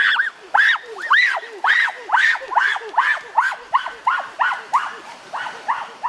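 An animal's repeated short whimpering calls, each rising and falling in pitch, about two a second, growing fainter near the end.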